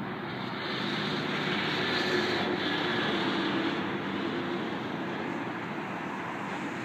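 Road traffic: a steady vehicle engine hum with tyre and road noise, swelling about two seconds in and easing off again.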